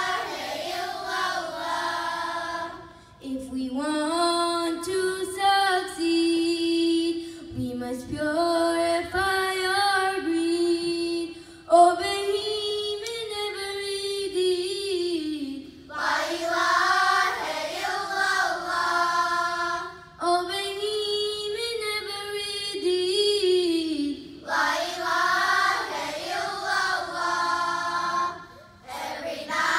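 A children's choir of girls singing together in phrases a few seconds long with short breaks for breath, a low held note sounding under the melody. A single sharp knock about twelve seconds in.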